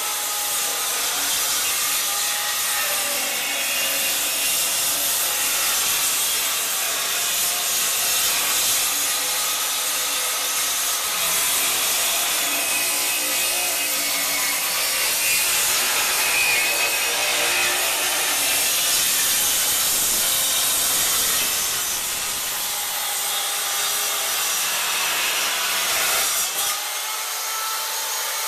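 Handheld circular saw running continuously as its blade cuts through pallet deck boards, the motor's whine wavering in pitch as it works through the cut.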